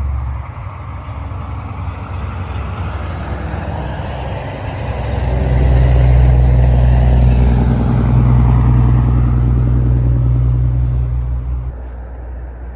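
A motor vehicle going past with a low engine hum. The sound swells about five seconds in, stays loud for several seconds, then fades near the end.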